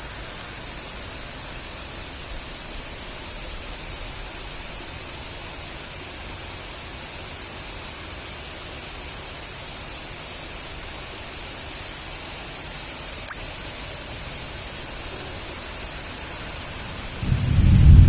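Steady hiss of falling rain. A short click comes about 13 seconds in, and a loud low rumble starts near the end.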